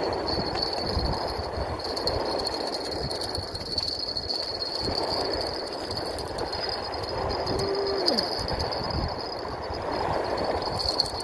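Strong wind buffeting the microphone in gusts, with a steady thin high whine underneath.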